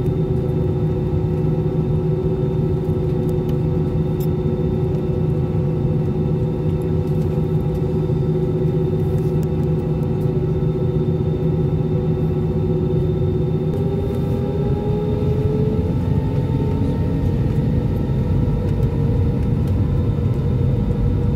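Jet airliner's turbofan engines heard from inside the cabin: a steady droning whine with a low rumble as the plane rolls. About fourteen seconds in the whine starts rising in pitch as the engines spool up, the start of takeoff thrust.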